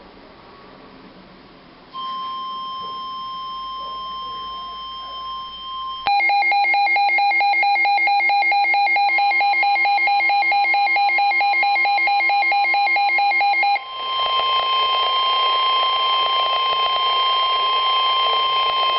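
Emergency alert tones of a weather-radio alert broadcast. A steady high tone near 1050 Hz, the weather radio warning alarm, starts about two seconds in. About four seconds later a loud, rapidly pulsing lower alert tone joins it for roughly eight seconds. The steady tone then runs on over a rough noise until it cuts off near the end.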